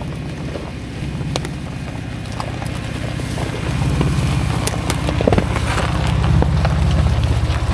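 SUV engine running under load at low speed on a rough dirt road: a steady low drone with many scattered clicks and knocks from gravel and jolts.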